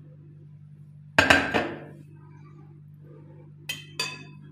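Clinking of a metal spoon and a cut-glass bowl: one loud clatter with a short ring about a second in, then two light clinks near the end. A low steady hum runs underneath.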